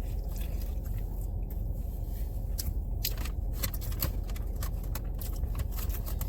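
Scattered small crunches and clicks of someone chewing food, over a steady low rumble.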